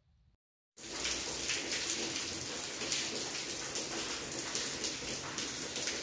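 Heavy rain falling steadily on a wet concrete yard, a dense patter of countless drops. It starts abruptly about a second in, after a moment of near silence.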